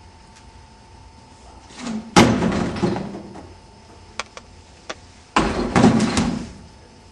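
Two loud bangs with rattling, each lasting about a second, about three seconds apart, with a few faint clicks between.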